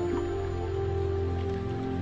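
Soft new-age ambient music with long held notes, the chord shifting slowly.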